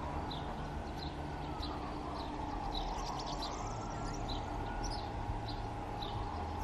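Distant airport noise: a low rumble with a whine that slowly rises and falls, and a bird chirping over it about twice a second.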